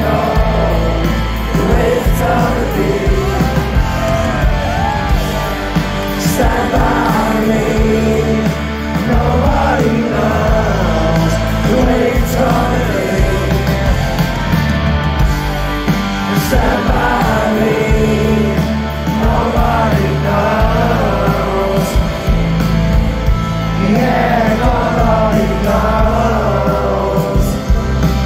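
Loud rock music from a band with a voice singing over it.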